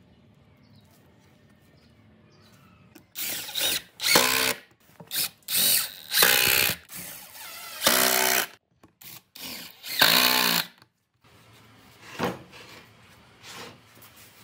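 Cordless drill driving screws into a wooden stool frame, in about eight short bursts of motor whine with brief pauses between. The bursts start about three seconds in and stop shortly before the end, with a few faint knocks after.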